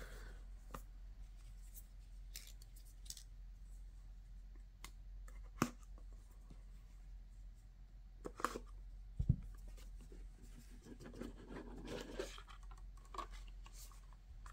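Faint handling of a cardboard box: a small knife scratching through the seal sticker, scattered taps and clicks, and a soft knock about nine seconds in. Near the end the lid slides off the box with a rustle.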